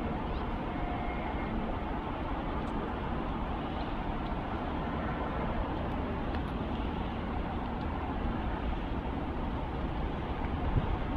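Steady outdoor background rumble with no distinct events, the kind of low, even noise of storm wind and distant city traffic heard from a high balcony.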